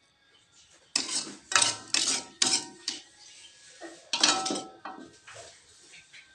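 Metal spoon scraping and clinking against cookware as food is ladled into a ceramic bowl: a run of sharp strokes, some briefly ringing, about five in quick succession from about a second in, then another cluster about four seconds in.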